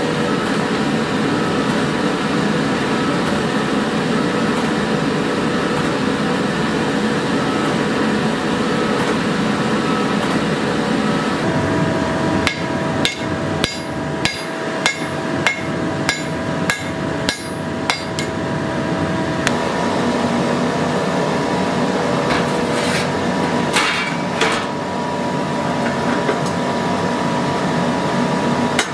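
Hand hammer striking the steel sword blade on an anvil: about a dozen evenly spaced blows at roughly two a second, each with a short metallic ring. A few more blows come a few seconds later, all over a steady rushing background noise.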